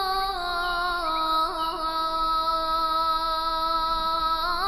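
A muezzin's voice chanting the azan, the Islamic call to prayer in Turkish style, holding one long drawn-out note. The note steps down in pitch about a second in, with a few small quick turns, and rises into a new ornamented phrase near the end.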